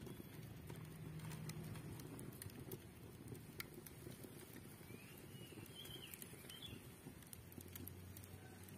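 Faint open wood fire crackling now and then under the cooking pan. A bird chirps briefly about five to six seconds in.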